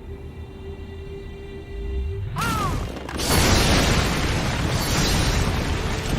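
Fight-scene soundtrack of an animation: a quiet held musical tone, then about two and a half seconds in a sudden loud boom with a short falling swoosh, followed by dense crashing effects over music.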